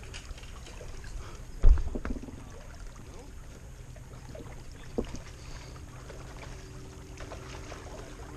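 Steady low hum of a motorboat's engine passing on the river, with a loud thump just under two seconds in and a smaller knock about five seconds in.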